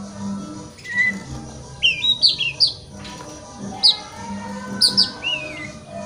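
Oriental magpie-robin singing: a short whistle about a second in, then two runs of quick, sharp chirps and slurred rising and falling notes.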